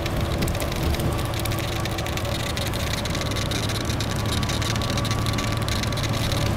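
Steady drone of an intercity coach's engine and road noise, heard from inside the passenger cabin while cruising at speed on the expressway: a low engine hum under an even hiss of tyres and wind.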